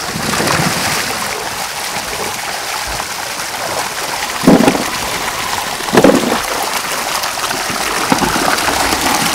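Water pouring in a steady rush into a large aluminium pot and splashing around potatoes and carrots being washed in it by hand, with two louder splashes about halfway through.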